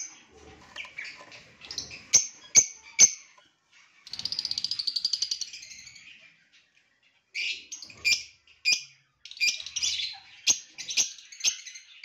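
Small parrots chirping, taken for the lutino lovebird pair whose nest box this is: sharp shrill chirps, a fast chattering run of about two seconds about four seconds in, a short pause, then quick clusters of chirps.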